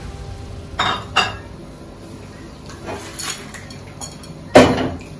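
Kitchenware clinking and clanking: two light clinks about a second in, a couple more around three seconds, then one loud clank with a short ring near the end.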